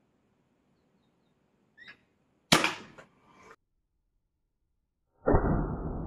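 Weihrauch HW80 spring-piston air rifle firing once, a sudden sharp crack that fades within about a second. About three seconds later comes a second equally loud, duller thump that dies away slowly.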